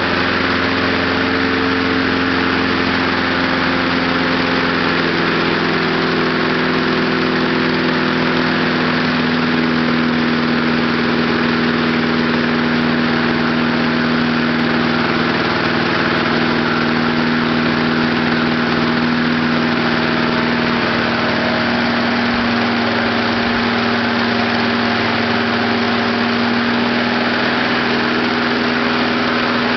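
Small lawnmower engine, fed gasoline vapor from a homemade heated-vapor kit, running steadily at a low speed, its note shifting slightly now and then.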